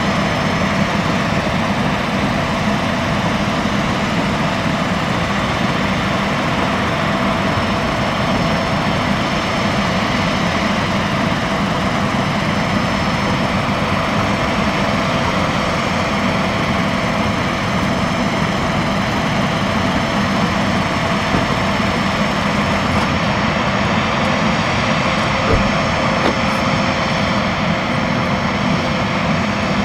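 Boeing 767 jet airliner running steadily: a constant whine over a low hum, with one brief knock near the end.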